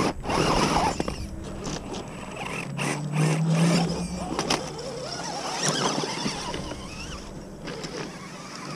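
1/10-scale RC rock crawlers climbing rock: small electric motors and geartrains whining while tyres scrabble and crunch on gravel and stone, with scattered knocks from the chassis on rock. A steadier motor hum stands out about three seconds in.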